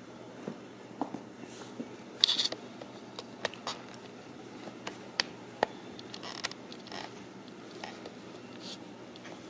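Kittens playing on a tile floor: light scattered taps and scratches of paws and claws, with a brief cluster of sharper scrapes about two seconds in.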